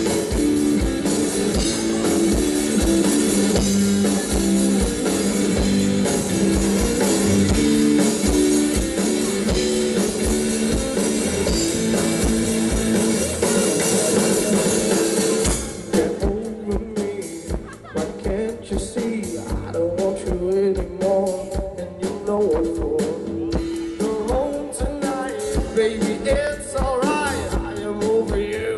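Live rock band playing: electric guitars and a drum kit with a singer. About halfway through, the dense full sound drops back to a sparser passage.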